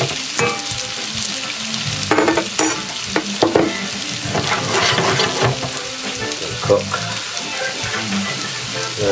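Potato latkes frying in shallow oil in a stainless steel pan: a steady sizzle with crackles, and a few sharper clicks between about two and three and a half seconds in.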